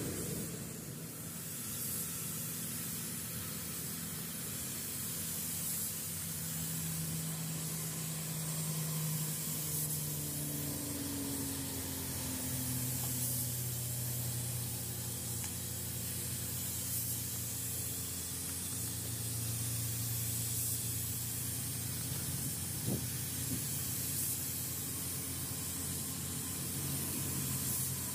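Compressed-air paint spray gun hissing steadily while spraying paint, with a low hum underneath that shifts in pitch now and then.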